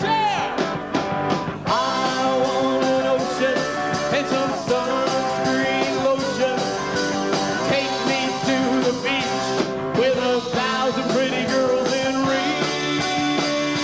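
A new wave rock band playing live, with electric guitar and a voice singing.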